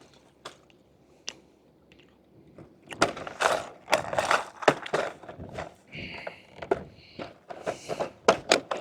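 Rummaging through a storage bag or compartment. Small hard items clatter, rattle and scrape irregularly, with a brief rustle partway through. It is quiet for the first couple of seconds.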